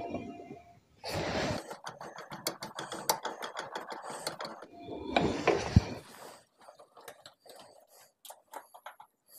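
Ratcheting screwdriver clicking rapidly as it tightens the worm-drive clamp on a washing machine's rubber drain hose, with a scrape or two. Near the end the clicks turn fainter and sparser as it drives a screw into the sheet-metal back panel.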